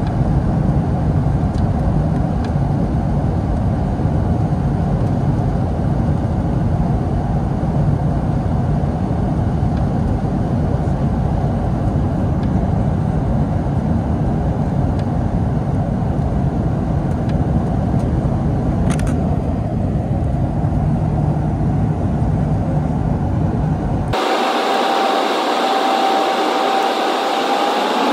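Cabin noise in a Boeing 757-232 on approach: the steady low rumble of airflow and its Pratt & Whitney PW2037 engines. About 24 s in the sound changes abruptly: the low rumble drops out, leaving a hiss with a steady high whine.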